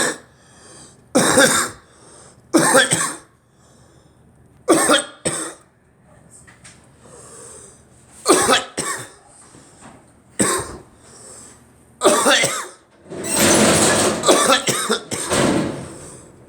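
A person coughing repeatedly: single coughs and short clusters one to three seconds apart, then a longer run of coughing lasting about three seconds near the end.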